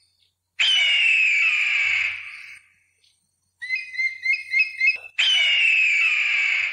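Eagle calling: two long, harsh, downward-sliding screeches, one about half a second in and one near the end, with a quick run of high chirping whistles between them.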